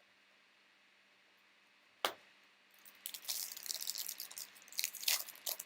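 A single sharp snap about two seconds in, then about a second later the crinkling and tearing of a trading-card pack's wrapper being ripped open and handled.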